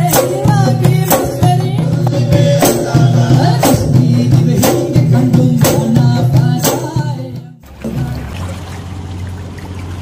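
Background music with a beat about once a second and a singing voice. About seven and a half seconds in the music stops, and a quieter passage with a low steady tone and a faint hiss follows.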